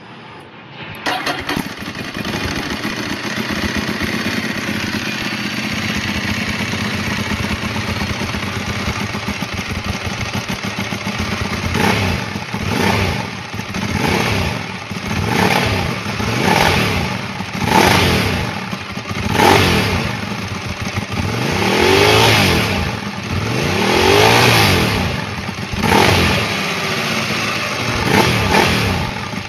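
A Ducati 1098's L-twin engine catches about a second in and idles steadily through a slip-on exhaust. From about halfway it is blipped about a dozen times, each rev rising and falling quickly.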